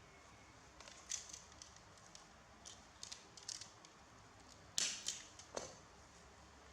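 Faint, crisp crinkling and rustling from a disposable diaper being handled and fastened, in scattered short clicks with the loudest about five seconds in.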